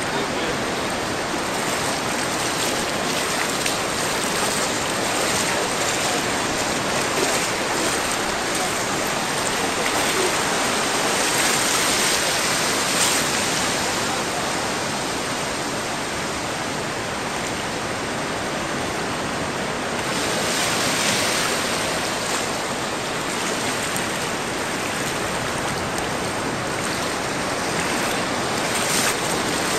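Waves washing through shallow sea surf, a steady rushing noise that swells a little twice.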